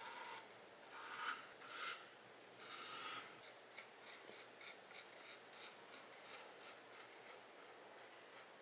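Faint scraping strokes, four short ones in the first three seconds, then a run of light, evenly spaced ticks at about three a second that fade away.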